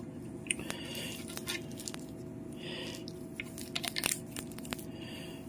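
Faint handling noise: scattered light clicks and soft crinkles as a roll of wood-grain vinyl veneer is moved about, over a steady low hum.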